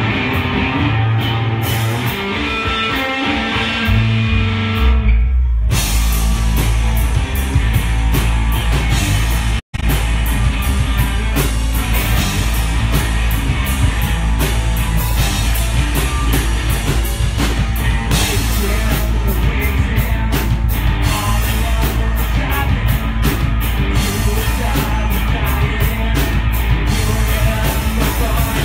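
Live rock band with drum kit, electric guitar and bass guitar through amplifiers. A thinner intro runs for about five seconds before the full band comes in with heavy bass and drums, and the sound cuts out for an instant just under ten seconds in.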